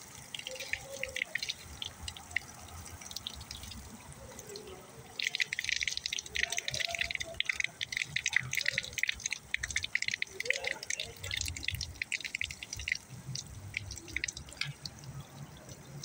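Water pouring from a pipe outlet on a brick wall and splashing into a puddle on the sidewalk: a steady patter of splashing that grows louder about five seconds in and eases again near the end.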